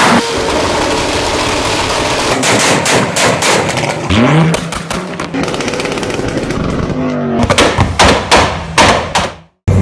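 Car exhaust on a two-step launch limiter or anti-lag system, firing loud rapid-fire bangs and pops over a constant rasping exhaust note, with the engine revving up briefly a couple of times. The sound stops abruptly shortly before the end.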